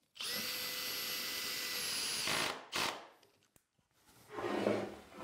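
Cordless drill/driver driving a wood screw into a solid wood tabletop: the motor runs steadily with a thin whine for about two and a half seconds, then stops. A short second burst follows.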